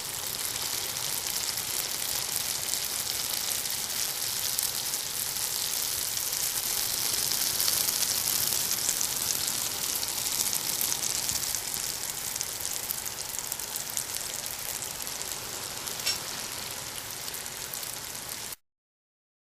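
Hot oil and grease frying in a pan, popping and bubbling lightly in a steady crackle, with one sharper pop about 16 seconds in. It cuts off suddenly near the end.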